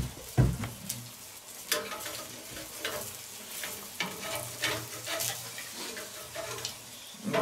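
Food sizzling on a charcoal grill, with a steady hiss and irregular small crackles and pops.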